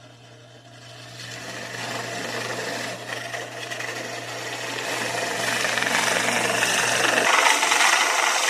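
Bauer benchtop drill press running, its step drill bit grinding through the shell of a dried mini bottle gourd; the cutting noise builds and grows louder from about a second in.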